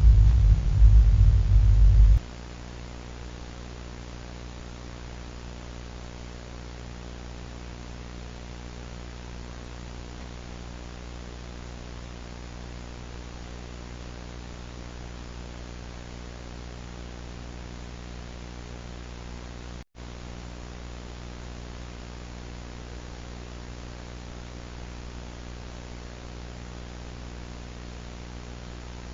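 A loud low rumble cuts off about two seconds in. It leaves steady static hiss over a low buzzing hum, like a dead broadcast channel, which drops out for an instant about twenty seconds in.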